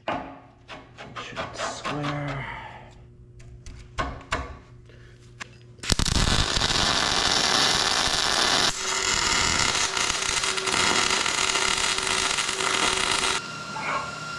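A few sharp metal clicks and knocks as a steel quick-change ear is set against an excavator bucket. About six seconds in, an arc welder strikes up: a loud, steady hiss of the welding arc that breaks off for a moment partway through and stops near the end.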